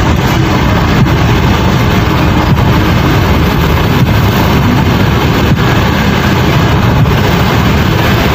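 Steady road and engine noise inside the cabin of a moving car, a constant low rumble with no change in pace.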